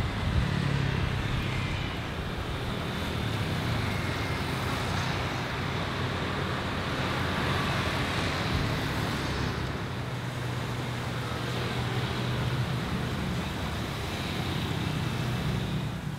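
Steady road traffic: a continuous stream of motorcycles and cars passing, their engines humming.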